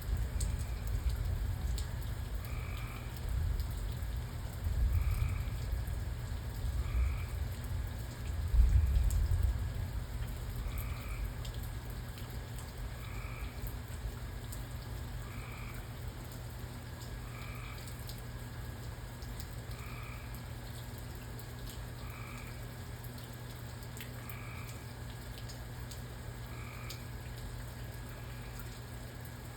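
A frog calling over and over, one short two-pitched croak about every two seconds, over a light hiss of rain. A low rumble of thunder swells a few times in the first ten seconds, loudest about eight seconds in, then dies away.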